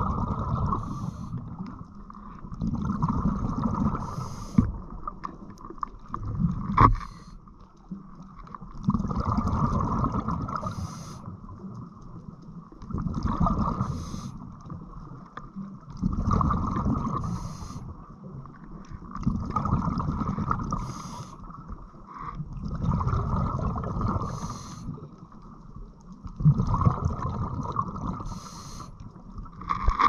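Scuba diver breathing through a regulator underwater: a short hiss on each inhale, then a burst of exhaled bubbles rumbling and gurgling, repeating about every three and a half seconds.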